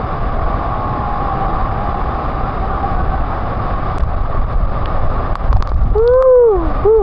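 Steady rushing roar of a waterfall and river, with a deep rumble. Near the end a person's voice calls out once in a rising-then-falling whoop.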